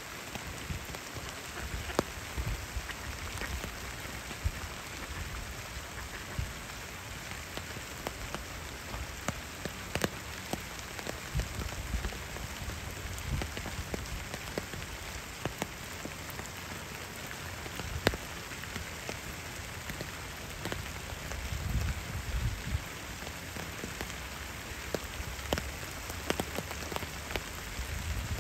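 Rain falling on a pond's surface: a steady hiss with many sharp drop ticks, under a low rumble that rises and falls.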